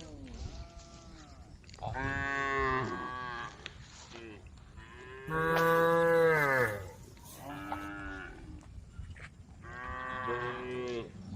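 Cows mooing: about five long, drawn-out calls, each falling in pitch at its end. The loudest comes about six seconds in.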